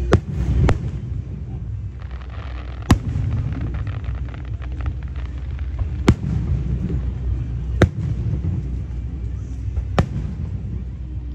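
Aerial firework shells bursting overhead: about six sharp bangs one to three seconds apart, with faint crackling between two of them, over a steady low rumble.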